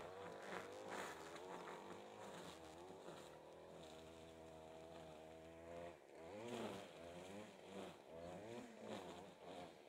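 Faint, steady drone of a distant engine, its pitch holding level for a couple of seconds in the middle.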